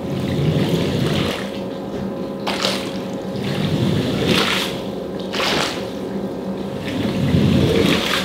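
Pressurised water spraying from a rinse wand pushed in strokes over a wet rug, the hiss and splash swelling about four times, over the steady hum of running cleaning machinery.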